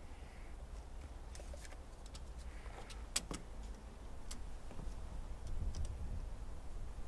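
A few small clicks and taps from a tape measure and pencil being handled against a canoe hull while hole positions are marked, the sharpest about three seconds in, over a steady low rumble.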